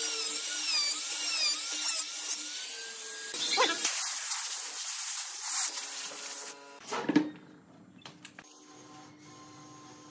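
Handheld trim router running and cutting into pine, its whine wavering in pitch as it bites. The motor stops about six and a half seconds in. A sharp knock follows, then only a faint steady hum.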